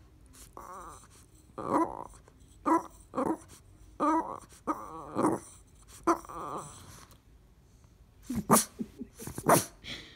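Boston terrier grunting and groaning, about eight short, wavering, whiny grunts in a row, the demanding noises of a dog that isn't getting what she wants. Near the end come two sharp nasal snorts a second apart, the loudest sounds.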